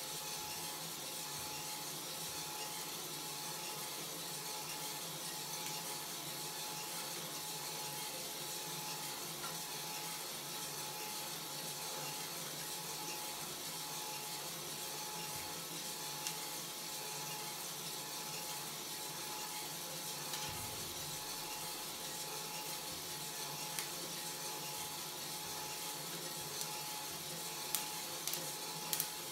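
Kaldi Mini coffee roaster running over a butane stove: the steady whir of the motor turning the drum, with a steady whine, over the hiss of the gas burner. A few sharp clicks come near the end.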